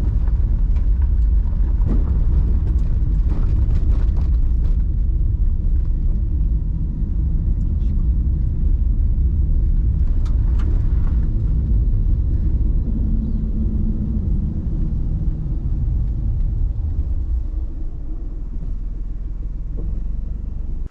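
Daihatsu Tanto kei car on the move: a steady low rumble of road and engine noise that eases slightly near the end, then cuts off abruptly.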